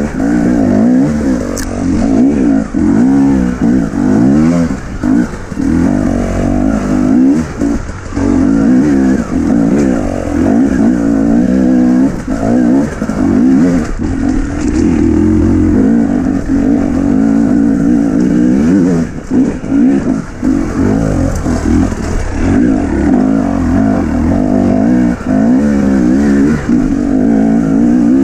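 Husqvarna enduro dirt bike engine being ridden hard on rough singletrack, its revs rising and falling constantly as the throttle is opened and rolled off, with short dips between bursts.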